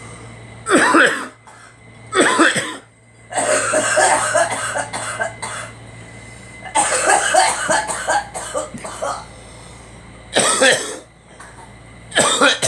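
People coughing and clearing their throats in about six bouts, some short, two of them longer fits of about two seconds; the cougher puts the coughing down to allergies.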